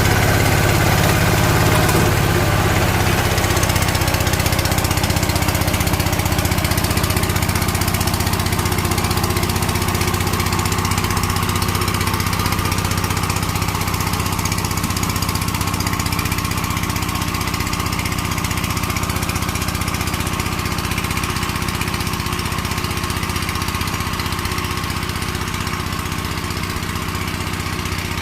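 Walk-behind power tiller's engine running steadily as it tills soil, slowly growing fainter.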